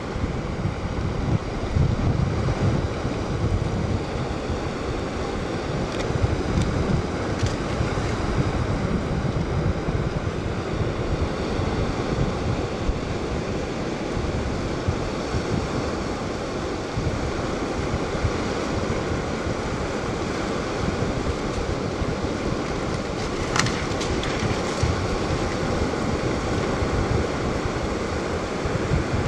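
Small sea waves washing onto a sandy shore, with sea wind buffeting the microphone in a steady, fluctuating low rumble.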